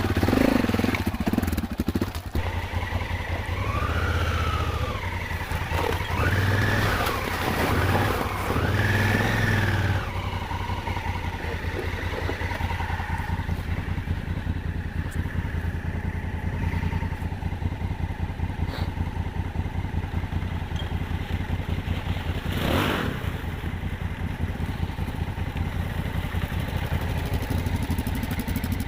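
Motorcycle engine idling, blipped three times in quick succession a few seconds in, then settling to a steady idle.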